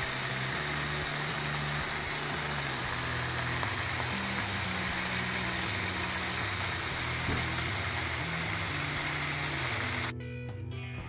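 Bacon strips sizzling in a frying pan: a dense, steady hiss that cuts off suddenly near the end. Background music runs underneath.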